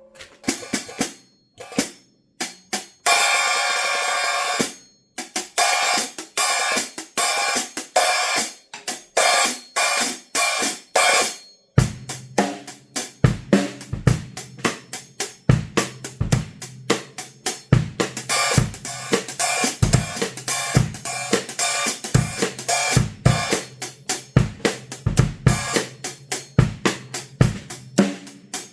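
Zildjian A City Pack cymbals played on a drum kit: separate hi-hat and cymbal strokes with pauses, one left ringing for about two seconds, then from about twelve seconds in a steady groove with kick and snare under the hi-hats and cymbals.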